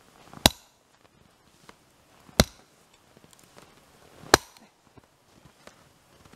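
Chopper 1 splitting axe striking firewood rounds: three sharp cracks about two seconds apart, and a fourth right at the end.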